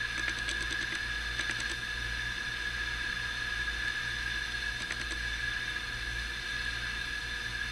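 Steady electrical hum and room noise, with a few faint small clicks in the first two seconds and again about five seconds in, as of a small metal pocket knife being turned over in the hand.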